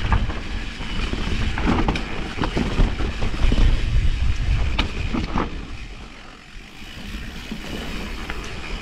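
Vitus Mythique 29 mountain bike ridden over a wet, rooty trail: a steady rumble of tyres and frame with sharp knocks and rattles as the wheels strike roots, easing off about six seconds in before picking up again.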